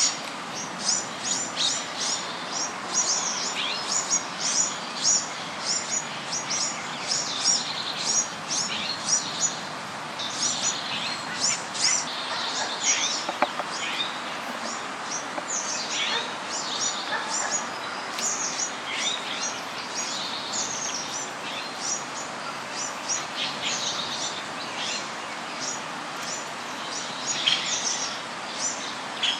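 Small birds chirping continuously: a dense stream of short, high chirps, several a second and often overlapping, over a steady background hiss.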